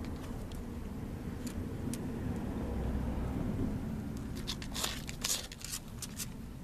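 A dog scuffing and rustling as it noses at a toad among plantain leaves on concrete and then moves away, with a quick cluster of crackles and scrapes between about four and six seconds in. A low steady rumble lies underneath.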